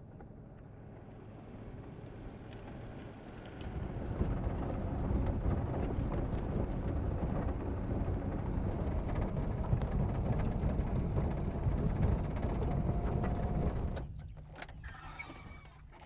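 Four-wheel-drive vehicle driving over rough grassland: engine and tyre noise that grows louder about four seconds in into a heavy, steady rumble heard from inside the cabin. About two seconds before the end it fades out, followed by a few sharp clicks as a car door is opened.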